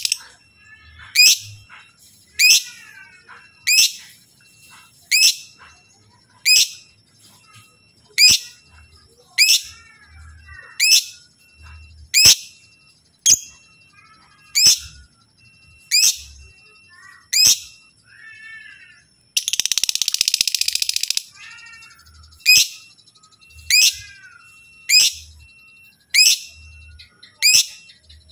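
Lovebird calling: a loud, sharp, falling shriek repeated about every 1.3 seconds, with fainter chirps between. About two-thirds of the way through comes a dense rattling chatter lasting about two seconds (the long 'ngekek').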